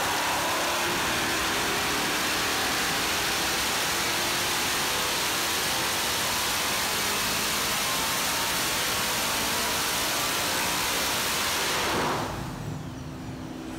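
ProCharger-supercharged 5.3-litre LS V8 running hard on an engine dyno, a loud, steady wall of engine, exhaust and supercharger noise. About twelve seconds in it drops suddenly to a much quieter running sound with a low steady hum as the throttle comes off.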